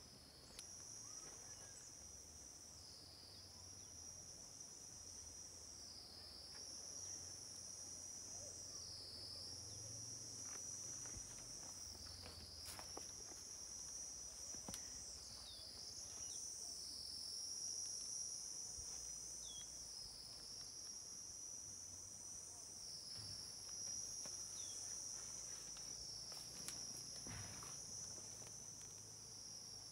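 High-pitched insect chorus, a steady buzzing drone that dips slightly in pitch every few seconds, with a few faint clicks.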